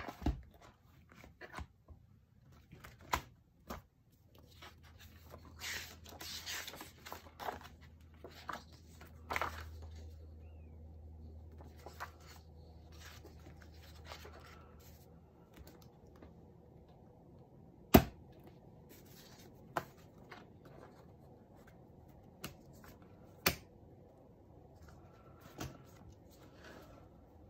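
Loose paper pages being handled and put back into a ring-bound planner with metal binder rings: paper rustling and sliding, broken by a handful of sharp clicks, the loudest about two-thirds of the way through.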